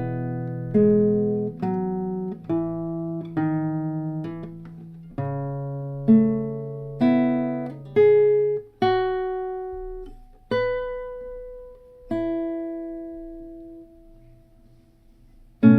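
A guitar is played slowly, note by note, with single notes and small chords picked about once a second, each left to ring and fade. Near the end the notes come further apart and ring longer.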